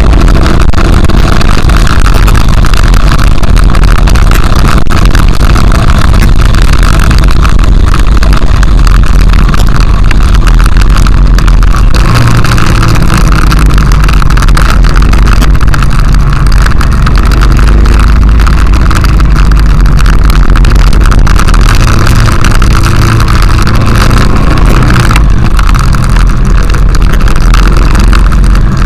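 Honda XRV750 Africa Twin's V-twin engine running under way, mixed with constant loud wind rumble on the microphone.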